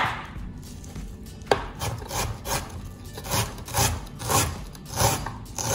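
Knife slicing onion thinly, a stroke about every half second, each with a short scraping edge; the strokes begin about a second and a half in, after a quieter start.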